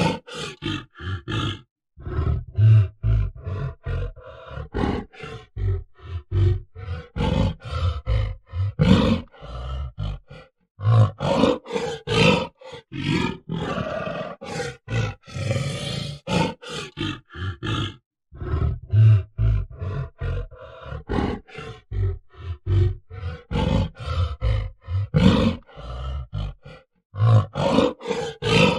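Gorilla grunting: runs of short, guttural grunts and roar-like calls in quick irregular succession, broken by brief pauses. The same sequence repeats about every eight seconds.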